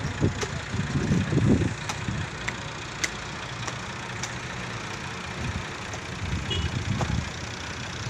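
Tractor engine running steadily, swelling louder briefly about a second in and again around seven seconds, with a few sharp knocks over it.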